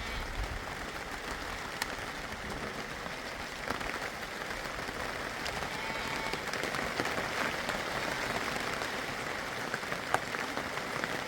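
Steady rain pattering, a dense even hiss with scattered sharp drips. A brief short chirp comes about six seconds in.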